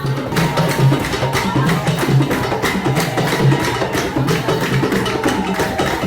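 Upbeat music with a steady percussive beat over a pulsing bass line.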